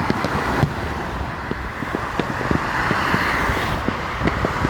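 Steady freeway traffic noise from passing cars, with many short, low thumps scattered through it.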